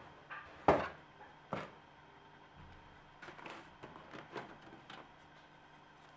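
A cardboard miniatures box and its plastic model sprues being handled on a wooden table. A few sharp knocks come in the first second and a half, the loudest about a second in. After that come lighter clicks and rattles as the plastic sprues are lifted out.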